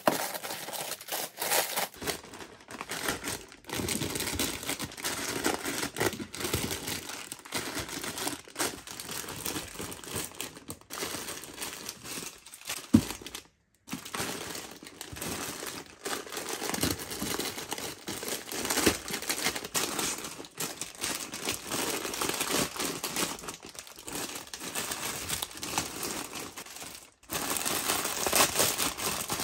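Plastic packets of instant noodles crinkling and rustling as they are picked up, shifted and folded in a drawer, including a plastic multipack bag being handled. Near the middle there is one brief sharp click, louder than the rustling, just before a short gap.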